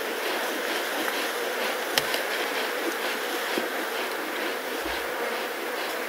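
Steady buzzing of flies and insects around resting lions at close range, with a sharp click about two seconds in and a soft low thump from the lions' movement near five seconds.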